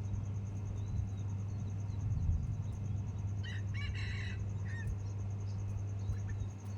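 A rooster crows once, for about a second, about three and a half seconds in, over a steady low hum and faint hiss.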